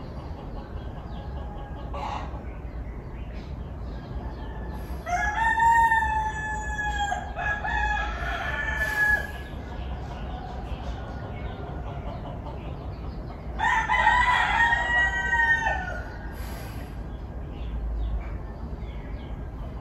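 Roosters crowing: long drawn-out crows about five seconds in, running on with overlapping calls to about nine seconds, and again around fourteen seconds, over a steady low rumble.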